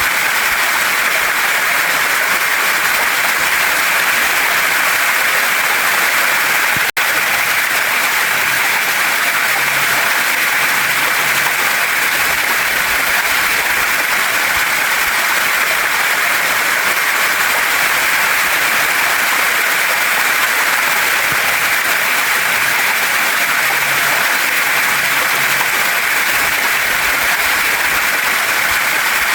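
Waterfall and stream water rushing in a steady, loud hiss, with a brief dropout about seven seconds in.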